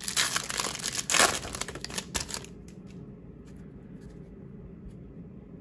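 Foil wrapper of a Topps Stadium Club baseball card pack crinkling as the pack is opened, for about the first two and a half seconds, then only a faint steady hum.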